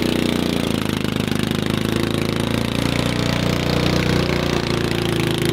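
Small engine of a kids' mini jeep running steadily under load as it hauls a boat trailer up out of the water.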